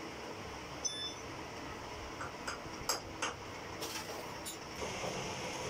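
Belt-driven metal lathe running steadily while turning a truck drive-shaft part, with several light metallic clinks scattered through it. One clink about a second in rings briefly, and the sharpest comes a little before the middle.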